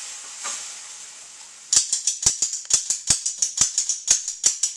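A steady hiss, then from a little under two seconds in, rapid sharp clicks of metal kitchen tongs being snapped shut over and over, about five a second.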